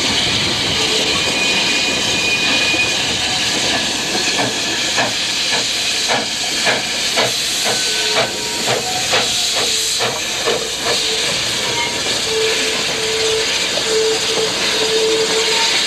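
Virginia & Truckee 4-4-0 steam locomotive Reno running past, its steam hissing steadily. Through the middle there is a regular beat of about two strokes a second.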